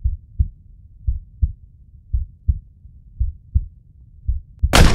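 Heartbeat sound effect: deep double thumps about once a second, five in all. A sudden loud bang comes just before the end.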